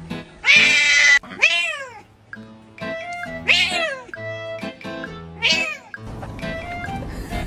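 Cat meowing four times over background music: a loud, harsh yowl about half a second in, then three shorter meows that rise and fall in pitch.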